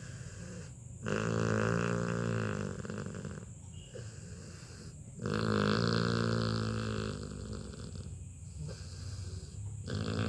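Labrador puppy snoring loudly in his sleep, a steady rhythm of long buzzing snore breaths every couple of seconds, the loudest starting about a second in and again about five seconds in.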